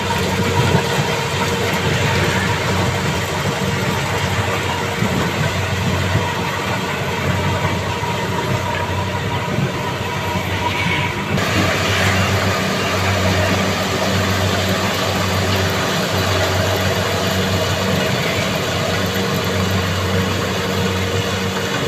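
Kubota combine harvester's diesel engine running steadily while the machine cuts standing corn, a continuous even hum. The sound shifts abruptly about halfway through.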